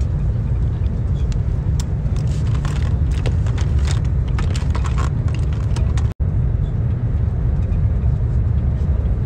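Steady low rumble of a passenger train in motion, heard from inside the carriage, with a run of small clicks and rustles in the middle from makeup pencils and clothing being handled close by. The sound cuts out for an instant about six seconds in.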